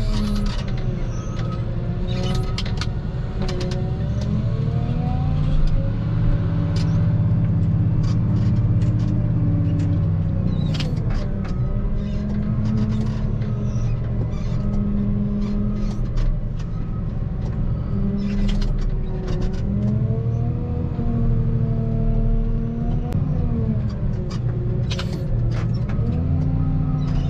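Engine of the machine pushing up a heap of sunflower pellets, its revs rising and falling again and again as it works the pile, with scattered sharp knocks.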